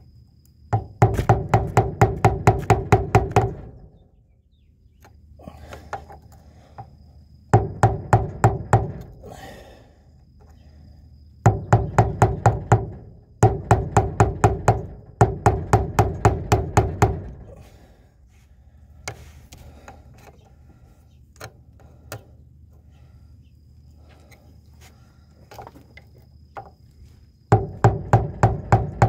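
A hammer striking an old screwdriver used as a chisel against a transmission tailshaft seal, the strokes ringing metal on metal. It is driving the leaking seal out of the extension housing. The strikes come quickly, about five a second, in five runs of a few seconds each with pauses between.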